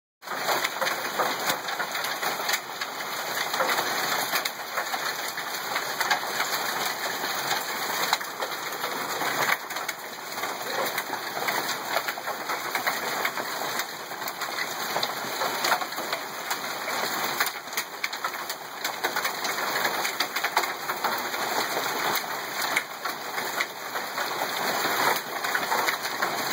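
Hail and heavy rain falling together on grass, concrete and pavement: a steady, dense hiss of rain with sharp ticks of hailstones striking through it.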